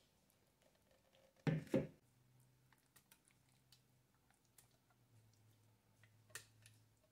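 Quiet kitchen handling: a silicone spatula scraping thick squash puree out of a blender jar and into a pot, with scattered small clicks and taps. Two dull knocks come one right after the other about a second and a half in, and another near the end.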